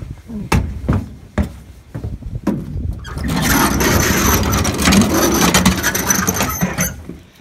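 A metal floor jack being hauled by its handle across a steel pickup bed: a few clanks and knocks, then about four seconds of loud rolling and scraping of its wheels and frame on the metal bed, which stops near the end.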